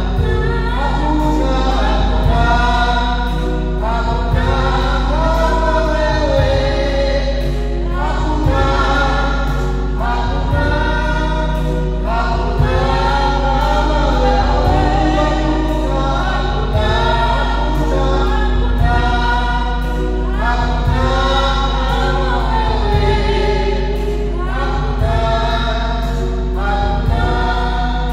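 Choir singing a gospel hymn, several voices together in a steady, continuous strain.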